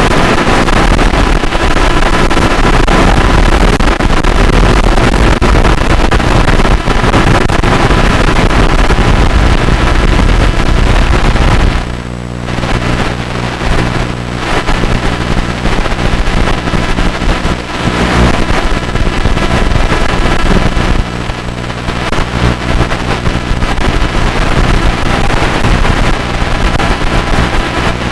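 Tiny whoop micro quadcopter in flight, heard through its onboard FPV camera feed: loud, harsh noise with a steady buzz. The noise dips briefly about twelve seconds in, and there a buzzing hum stands out more clearly.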